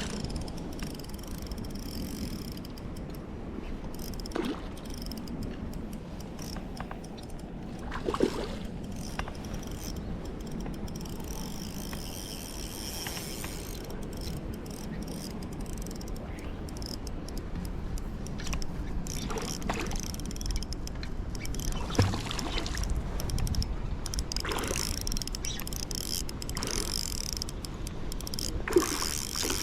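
Spinning reel being cranked on a retrieve, a steady mechanical ratcheting, over a low rumble of wind on the microphone, with a few sharp knocks.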